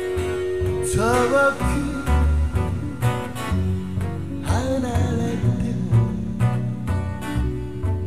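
Music: an acoustic guitar playing with a man singing, the vocal phrases coming in about a second in and again past the middle.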